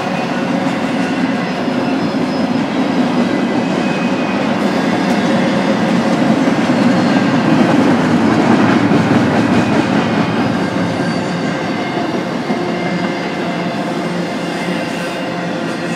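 Double-stack intermodal freight cars rolling past on the rails: a steady rumble of steel wheels on rail with light clicking and faint high squealing tones from the wheels. It swells a little loudest around the middle.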